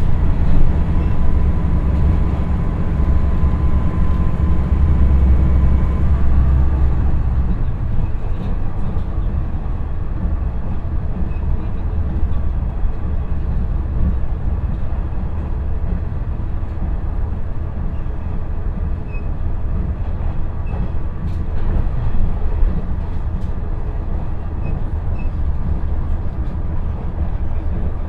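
Inside a JR KiHa 110-series diesel railcar on the move: the Cummins diesel engine pulls hard with a deep drone and a faint whine for the first seven seconds or so. The drone then falls away as power is shut off, and the car coasts with a steady rumble of wheels on rail.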